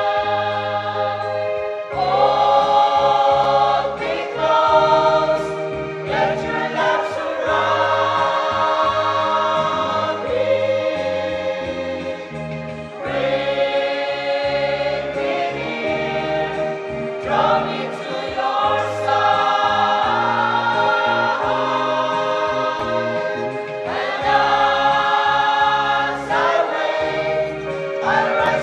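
Mixed church choir of men and women singing a hymn together through microphones, in long phrases with short breaks between them.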